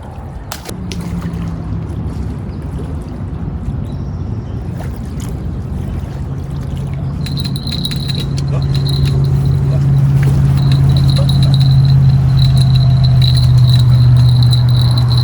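Boat motor running with a steady hum and a faint high whine, growing louder over the second half.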